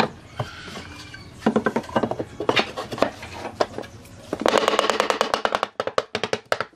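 Pine boards being knocked and shifted into place in the bottom of a wooden box: a series of sharp wooden knocks and taps, with a quick run of rapid knocks about four and a half seconds in.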